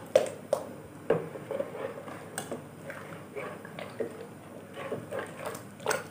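Metal ladle stirring a thick tomato broth in a stainless steel pot, clinking and knocking against the pot's sides and bottom several times.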